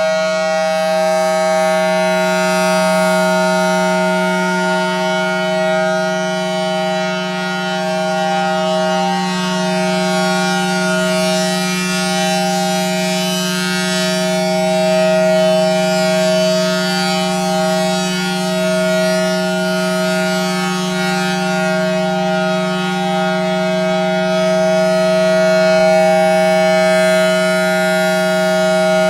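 Federal Signal Thunderbolt 1000T outdoor warning siren, with a 4/5-port chopper, sounding a steady full-alert chord at a constant pitch; the level swells and fades gently. Its blower runs backwards, sucking air rather than blowing, which the uploader takes to be why it is not as loud as a Thunderbolt can be.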